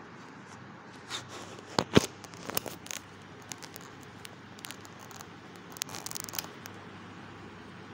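Handling noise from the recording phone as a hand adjusts it: scattered clicks, knocks and rustles, the loudest knock about two seconds in and a burst of scraping near six seconds.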